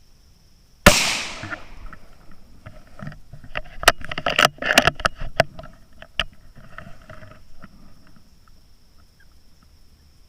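.17 HM2 rifle shot about a second in: one sharp, loud crack that rings off for about a second. It is followed for several seconds by a flurry of rustles, snaps and knocks in the leaves.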